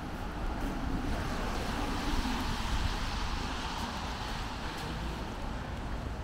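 A car passing by on the street, its tyre and engine noise swelling over a second or two and fading away again.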